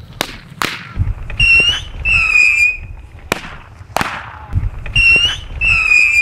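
Small firecrackers going off in a string of sharp cracks, mixed with short, shrill whistling tones that rise and fall.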